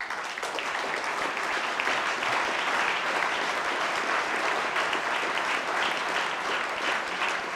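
A large seated audience applauding steadily, the clapping breaking out sharply as the speaker pauses.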